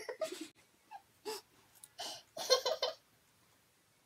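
Girls laughing in short breathy bursts, the strongest a quick run of pulsed laughs about two and a half seconds in.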